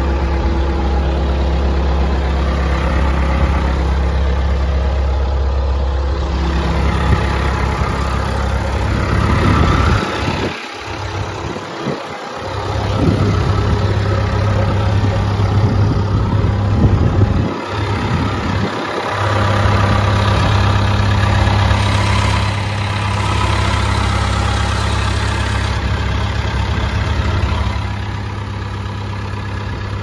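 John Deere 650G bulldozer's diesel engine idling steadily, heard up close; its low hum thins out briefly a couple of times midway.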